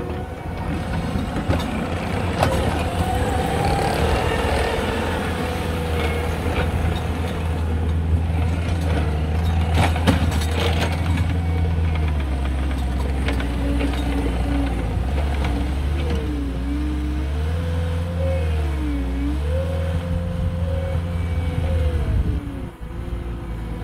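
Compact track loader's diesel engine running under load as it scrapes back and forth through dirt clods, with scattered knocks and clatter in the first half. Past the middle, a whine rises and falls repeatedly as the machine changes speed and direction.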